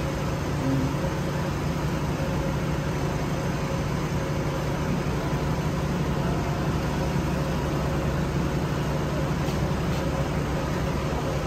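A steady low rumble with a faint hum under it, unchanging throughout.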